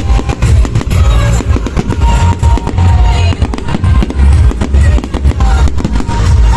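Loud music with a heavy bass beat and a melody, mixed with many sharp bangs and crackles of fireworks going off.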